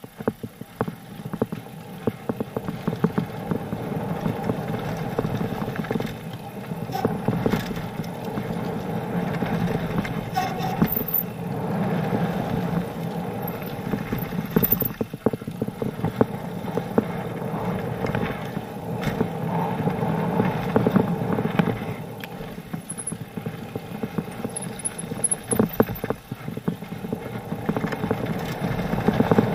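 Mountain bike descending a loose gravel trail, heard from a camera mounted on the bike: tyres crunching over stones and the bike rattling and knocking over bumps in a constant, uneven clatter.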